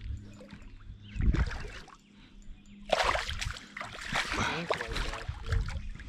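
A hooked white bass splashing at the water's surface as it is reeled in toward the boat, with a single thump about a second in.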